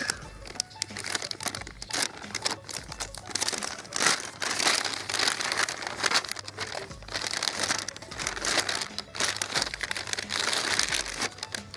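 Foil and plastic packaging of a flameless ration heater crinkling in irregular bursts as it is opened and the heater bag is unfolded.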